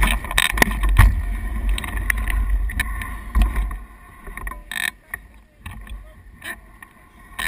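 Wind buffeting an action-camera microphone lying in tall grass, with grass brushing and clicking against it. Mountain bikes ride past on the dirt trail, with a short rush of tyre noise about halfway through.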